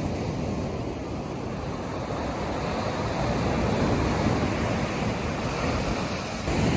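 Ocean surf breaking and washing up a sandy beach, swelling louder a few seconds in and again near the end.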